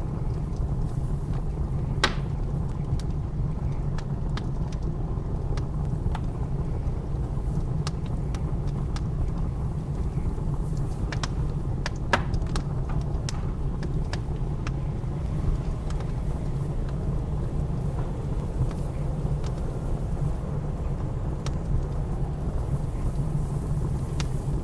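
Wood fire crackling, with irregular sharp pops and snaps, two of them louder, about two seconds in and near the middle. Beneath it runs a steady low rumble of blizzard wind.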